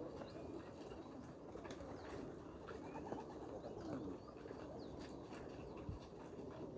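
Faint cooing of pigeons: soft, wavering low calls with a few gliding notes, and a few faint high chirps scattered through.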